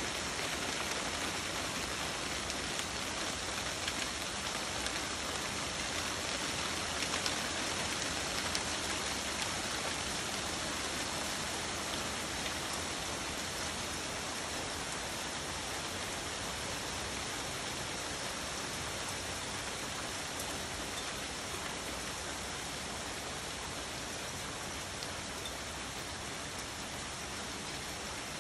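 Steady rain falling, an even hiss of many drops that eases slightly near the end.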